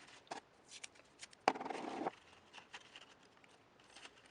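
Cardboard tubes handled with light scattered clicks and taps, and about a second and a half in a half-second rasp of adhesive tape being pulled off its roll to tape the tube hinges.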